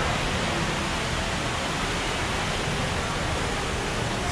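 Steady, even rushing noise of the ride's water channel and greenhouse surroundings, heard from aboard a slow ride boat, with no distinct events.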